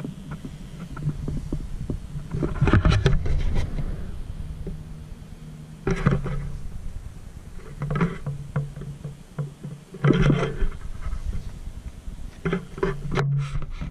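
Scattered clicks and knocks from a door's lever handle and an intercom push-button being worked, in several short clusters, over a low steady rumble.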